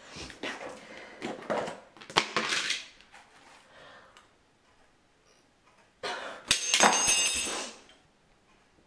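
A metal spoon knocking and scraping in a tub, then, about six seconds in, a loud clatter of the tub, its lid and the spoon thrown onto a tiled floor.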